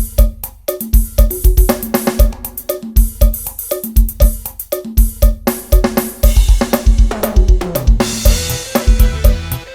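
A live band playing an instrumental passage with no singing: a drum kit with kick drum, snare and hi-hat over a bass line in a steady beat. About seven seconds in, a falling run of low notes leads into a cymbal crash that rings on.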